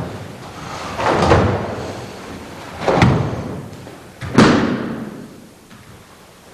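Three heavy thumps about a second and a half apart, each dying away, the last the loudest: bodies landing on a mat as partners are thrown in a jujitsu demonstration.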